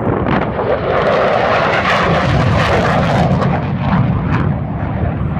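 Jet aircraft making a low pass. Its engine noise builds to a peak about two seconds in, then a deep rumble follows as it goes by, and the noise eases off toward the end.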